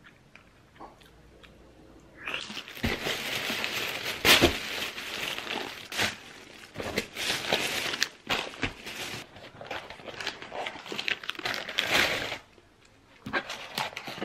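Paper and plastic takeout packaging crinkling and crackling as a burger order is unwrapped. It starts about two seconds in and runs on with sharp crackles, stops briefly, then comes back in a short burst near the end.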